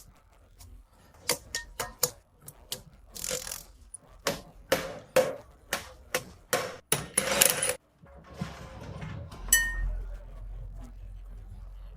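Hand work on metal parts: irregular metallic clicks, knocks and scrapes, with one ringing metallic ping near the end, over a steady low hum in the last few seconds.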